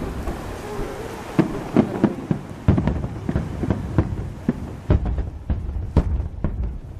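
Aerial fireworks bursting one after another in an irregular volley, about a dozen sharp bangs over a low rumble.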